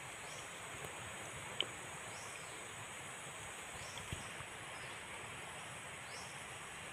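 Steady outdoor ambience with a high, steady insect drone, a faint rising chirp repeating every couple of seconds, and a few faint knocks.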